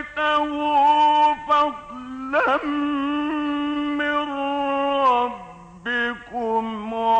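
Male Quran reciter's voice chanting in the melodic mujawwad style: a long ornamented phrase with a note held steady for about three seconds, a brief pause, then a new phrase about six seconds in.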